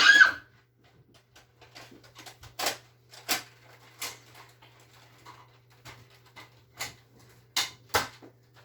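Scattered sharp knocks and clicks, about half a dozen clear ones, with a loud one right at the start, over a steady low hum.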